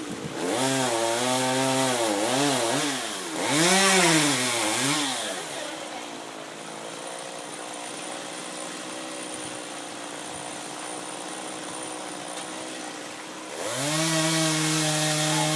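Chainsaw engine revving up and down several times in quick succession, then dropping to a quieter run for several seconds before it is opened up again and held at a steady high speed near the end.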